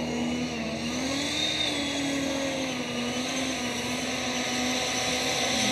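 Battery-powered electric ducted fan of a radio-controlled F-16 model jet running at taxi power: a steady whine that dips and rises slightly in pitch about a second in, then holds.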